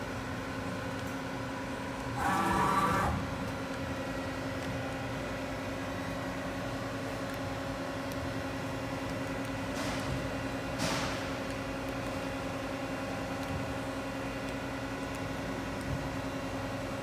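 Daewoo Lynx 200LC CNC lathe under power, humming steadily with several fixed tones. A louder, brief mechanical noise comes about two seconds in, lasting under a second, and two short hissing sweeps come around ten and eleven seconds.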